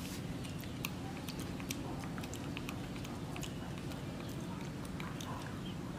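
A baby monkey chewing steamed egg, with many small irregular mouth clicks and smacks over a steady low background hum.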